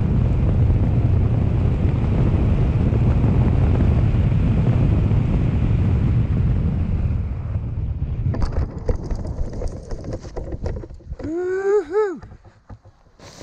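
Wind rushing over a helmet camera's microphone under a parachute canopy, loud and steady, easing off about seven seconds in as the jumper nears the ground. Then scuffs and rustling of the landing, and a brief voice rising and falling near the end.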